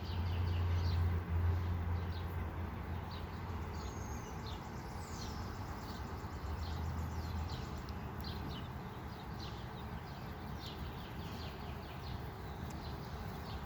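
Birds chirping repeatedly in short, quick notes over a low rumble that swells in the first few seconds and again briefly in the middle.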